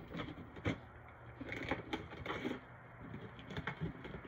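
Irregular light taps and scuffs from footsteps on a paved patio and a phone being handled while walking.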